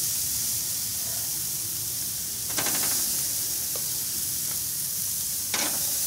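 Hamburger patties sizzling on the grate of a charcoal grill, with a louder burst of sizzle twice, about two and a half seconds in and again near the end, as another raw patty is laid on the hot grate each time.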